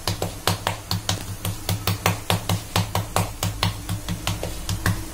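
Palms patting a ball of bajra (pearl millet) dough flat into a bhakri on a floured counter: a quick, even rhythm of soft slaps, about four a second.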